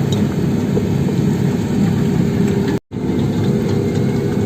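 Sumitomo SH75 excavator's diesel engine running steadily under work, with a brief full gap in the sound a little past halfway.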